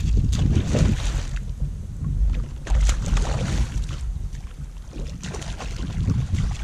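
A hooked bass splashing and thrashing at the water's surface beside a kayak in a few bursts, over a steady rumble of wind on the microphone.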